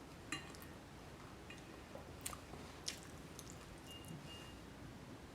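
Faint close-up chewing of food, with a few soft wet mouth clicks.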